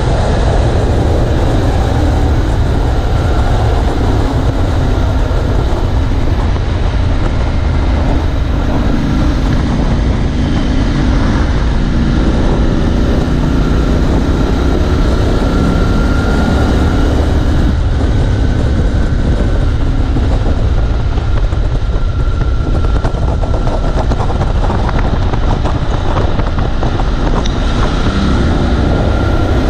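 Triumph Scrambler 1200XE's parallel-twin engine running under way, its pitch rising and falling a few times with the throttle, under heavy wind rumble on the GoPro's microphone.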